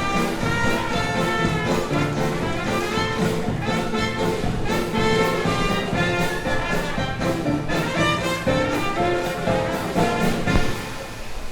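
Brass-led jazz music with trumpets and trombones, played as a wrestler's entrance music. It drops away just before the end, right after a single sharp hit.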